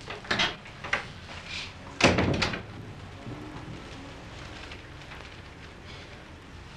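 A few short knocks and clatters, the loudest about two seconds in, then a steady hiss.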